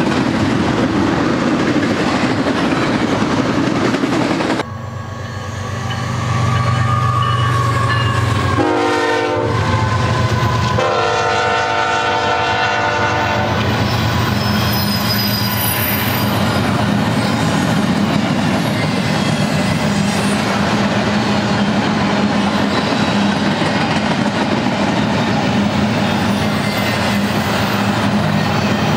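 A double-stack freight train rolling past, wheels clattering on the rails. About four and a half seconds in the sound changes abruptly: BNSF GE ES44C4 diesel locomotives blow their horn in several blasts, a warning for the grade crossing, the last blast ending about halfway through. After that, empty well cars roll by with a steady clickety-clack and faint wheel squeal.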